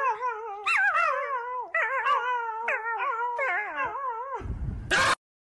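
A puppy howling in a run of wavering, warbling calls, each one bending up and down in pitch. About four and a half seconds in it is cut off by a short, loud burst of noise.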